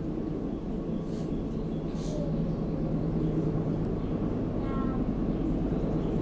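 A steady low mechanical drone, with two short hissing puffs about one and two seconds in.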